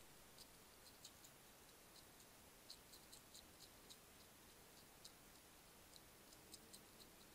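European hedgehog crunching dry kitten biscuits: faint, irregular sharp clicks, several a second, over a steady background hiss.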